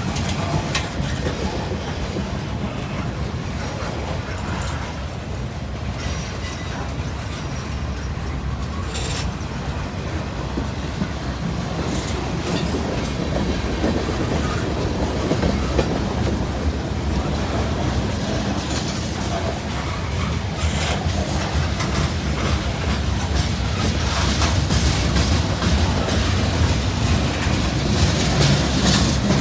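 Freight train cars rolling past with a steady rumble, the wheels clicking over rail joints, growing slightly louder near the end.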